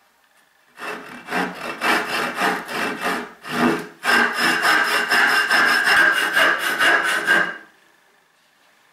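Restored Sorby dovetail saw rip-cutting down the grain into the end of a wooden board in a test cut, its teeth rasping through the wood in quick back-and-forth strokes. The sawing starts about a second in, gets faster and louder about four seconds in, and stops near the end.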